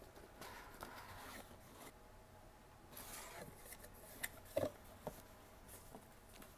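Hands opening a cardboard box: faint rustling and scraping of the lid and packing, with a few light knocks about four to five seconds in.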